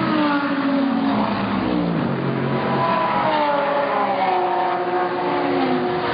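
GT race car engines at racing speed, their pitch falling and rising again several times as the cars brake, shift and accelerate.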